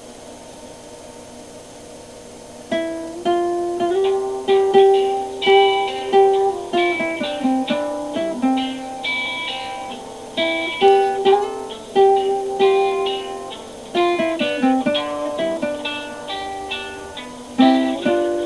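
Faint hiss, then about three seconds in a guitar starts playing a picked melody of single notes and short chords, each note ringing and fading.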